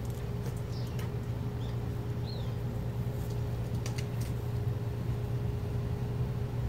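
A steady low machine hum with a faint steady tone above it, unchanging throughout. A few faint, short bird chirps are heard in the first couple of seconds.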